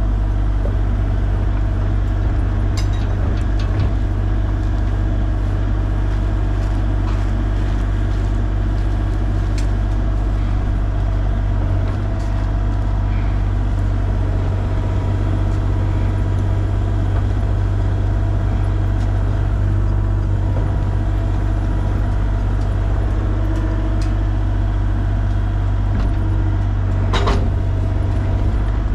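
Excavator diesel engine running steadily while digging, with a few short knocks from the machine's bucket and arm, the sharpest near the end.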